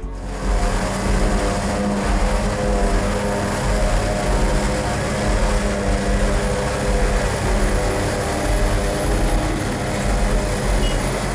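New Holland FR500 self-propelled forage harvester running at work, picking up and chopping grass for silage: a steady, loud mechanical drone of engine and chopping machinery.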